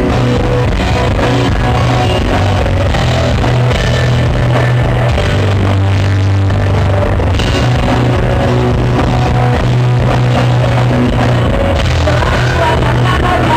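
Rock band playing live: electric guitars, bass and drum kit, loud and steady, with a driving bass line under regular drum hits.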